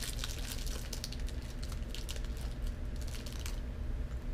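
Clear plastic snack-cake wrapper crinkling and crackling in the hands, in quick irregular bursts that thin out near the end, over a steady low hum.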